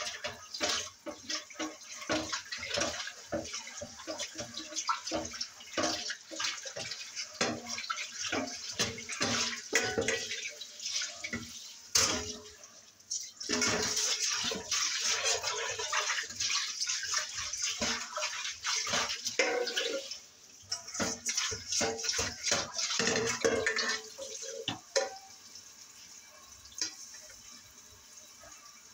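Kitchen tap running into a sink during dishwashing, with frequent knocks and clinks of dishes and utensils. The water stops briefly about twelve seconds in and again near twenty seconds, and the last few seconds are quieter.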